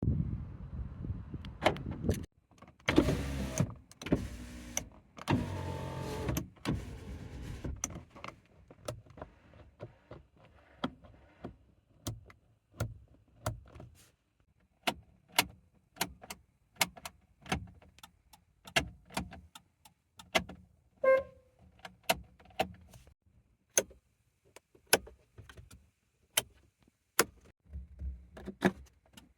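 Renault Twingo's controls worked one after another: an electric window motor runs in three short stretches, then a long series of sharp clicks from switches, buttons and latches, with a short beep about 21 seconds in.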